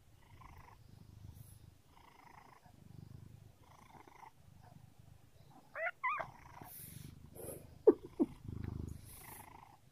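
Domestic cat purring, a low rumble that swells and fades with each breath. About six seconds in there are two short rising chirps, and just before eight seconds two brief sharp sounds.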